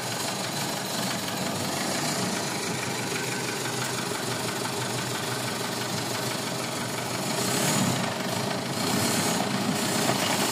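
Mazda BT-50's 3.0 L WE four-cylinder turbo-diesel idling with a steady diesel knock, briefly a little louder about eight seconds in. The mechanic has found injectors 1 and 3 weak, number 3 barely responding, and says they need calibrating.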